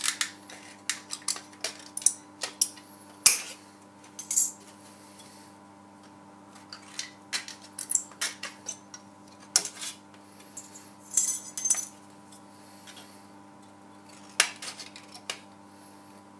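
Betts tin snips cutting thin 10-thou steel shim stock into strips: irregular sharp metallic snips and clicks, with a longer crackling stretch a little after halfway as the thin sheet is worked.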